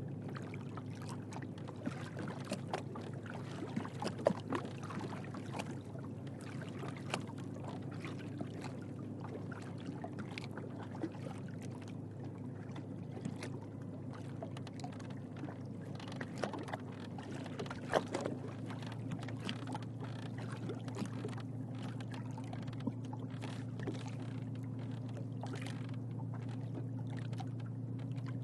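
Small boat bobbing on open water: water lapping and slapping against the hull in irregular small splashes and knocks. Underneath runs a steady low hum of distant boats' motors, which rises slightly in pitch about two-thirds of the way through.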